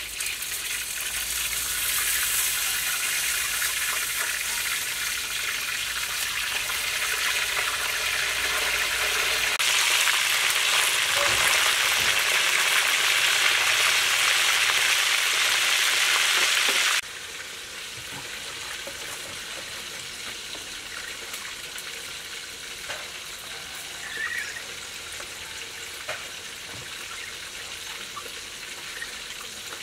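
Fish deep frying in a wok of hot oil, a steady sizzle that is loudest in the middle and cuts off suddenly about two-thirds of the way through. After that, softer water sounds come in, with a few small splashes as hands wash small green fruits in a plastic bowl of water.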